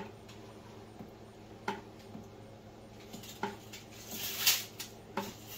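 A few light knocks spaced well apart, with one louder scraping rustle about four seconds in, over a steady low hum.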